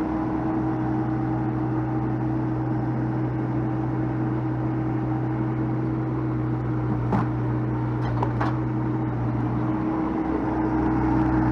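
Heavy-equipment engine running steadily at a constant speed, with a few brief metallic clanks about seven and eight seconds in.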